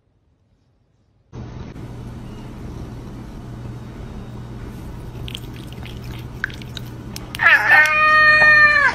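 A cat meowing once, loud and long: the call drops in pitch at the start and is then held level. A steady low hum runs underneath.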